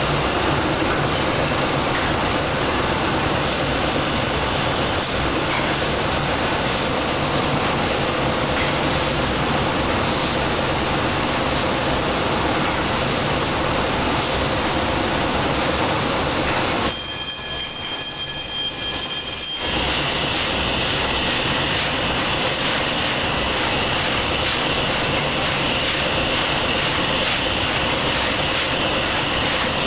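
Paddle steamer's steam engine running steadily in its engine room, a dense, even mechanical running noise. For about three seconds past the middle, the low running noise drops away and a high, ringing sound with many evenly spaced overtones takes its place, before the running noise returns.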